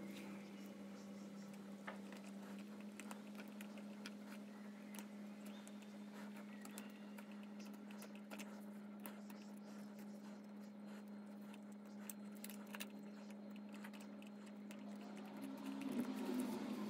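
Small carving knife scraping and picking at the dead wood of a yew bonsai's trunk: scattered light scratches and clicks over a steady low hum, a little louder near the end.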